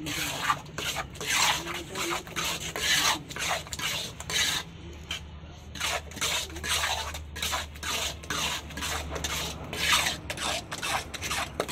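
Trowel scraping and scooping wet cement around a metal pan: a run of rough, irregular scraping strokes, about two or three a second.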